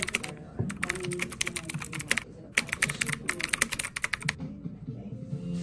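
Computer-keyboard typing sound effect for a caption being typed on screen: three quick runs of key clicks, many a second, with short breaks between them.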